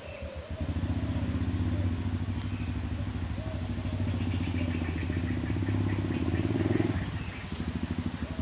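An engine running steadily with a rapid low pulsing. It comes in about half a second in and fades away near the end.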